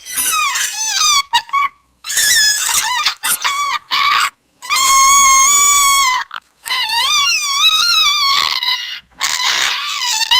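Baby monster squeak sound effects: a string of high-pitched creature squeals with a warbling, wavering pitch, broken by short pauses, with one long, steadier squeal about halfway through.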